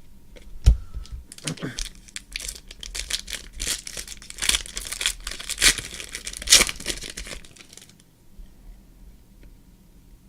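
A foil trading-card pack wrapper being torn open and crinkled, a dense crackling run of several seconds that stops about two seconds before the end, after a light knock or two near the start.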